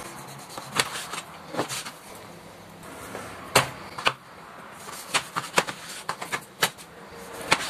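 Kitchen knife slicing raw pork and knocking against a plastic cutting board: irregular clicks and taps, the sharpest about three and a half seconds in.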